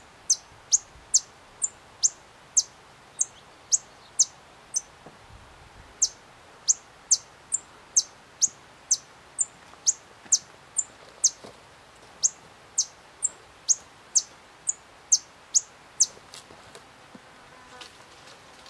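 White-vented violetear hummingbird singing from a perch: a long, even series of sharp, very high chip notes, about two a second, each dropping quickly in pitch. There is a short pause about a third of the way in, and the series stops near the end.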